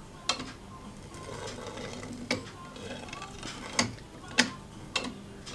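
Hand-turned 3D-printed plastic cam-track disc of a cable-pull blast-gate actuator, with a metal rod riding in its track: five sharp clicks, unevenly spaced, over faint rubbing as the mechanism is worked and its spring is tensioned.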